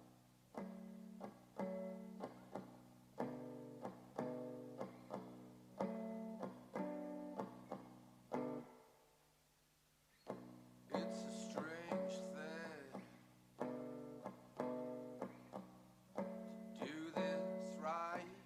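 Guitar playing a song intro: picked chords in a repeating pattern, breaking off briefly about nine seconds in, then resuming with wavering, bending high notes over the chords.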